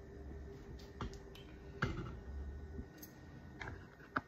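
A few scattered light clicks and knocks from things being handled, the last one the sharpest, over a faint low rumble.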